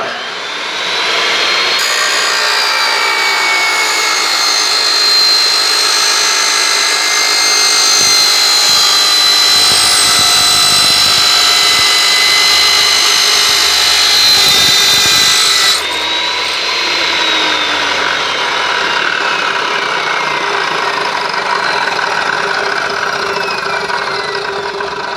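Chop saw fitted with a carbide-tipped wood circular saw blade, started up and cutting through steel angle iron with a loud, steady high-pitched screech for about fifteen seconds. After that the sound eases and the blade spins down, its whine falling slowly in pitch.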